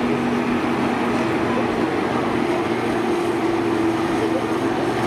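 Engines of several John Deere combines running hard together: a loud, steady engine noise with no clear crash.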